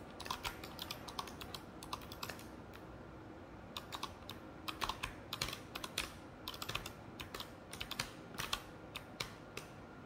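Typing on a mechanical keyboard: fast, irregular runs of sharp key clicks, with a brief pause about two and a half seconds in.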